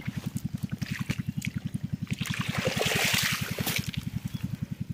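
Water pouring and trickling off a fish trap as it is lifted out of the water, loudest about two to four seconds in, over a steady low throb pulsing about ten times a second.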